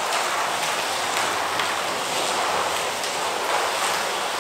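Slot cars running laps on a multi-lane track: a steady whirring hiss from their small electric motors and their pickups and tyres on the track, with faint ticks now and then.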